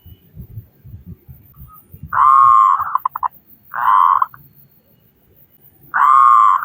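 Local zebra dove (perkutut) cooing. One drawn-out coo ends in a quick stutter of short notes, a second coo follows about a second later, and another coo with its stuttering tail begins near the end.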